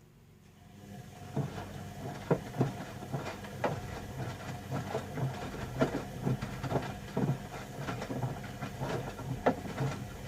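Bauknecht Dynamic WA 1460 Sports washing machine's drum motor starting up about a second in and turning the drum with a steady hum, with irregular knocks and clicks of laundry tumbling against the drum.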